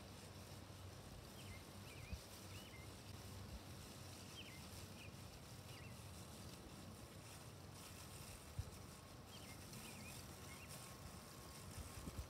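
Faint outdoor quiet with a low steady hum, broken three times by small groups of short, high bird chirps, and two soft knocks.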